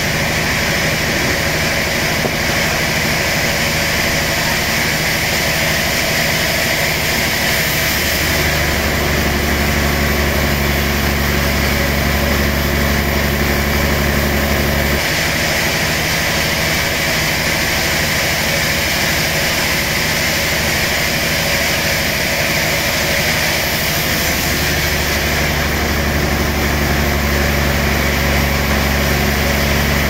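A steady engine running, with a constant hiss over it. A deeper hum comes in twice and holds for several seconds each time.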